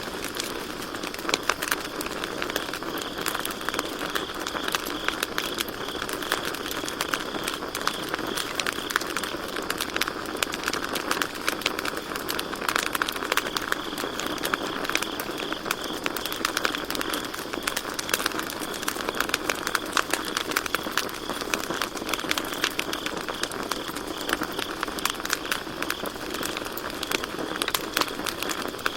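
Campfire crackling, with dense irregular pops and snaps over a steady hiss of burning wood. Crickets chirp in a high, even trill that fades and returns.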